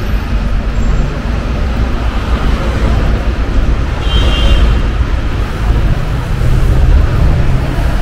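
Busy city-street traffic: cars and double-decker buses running and passing close by, a steady rumbling noise. A brief high squeal about halfway through.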